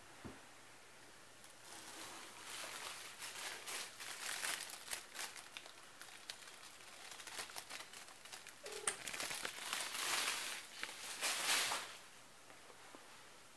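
Crinkly rustling and crackling close to the microphone, in irregular bursts that grow loudest near the end and stop about twelve seconds in.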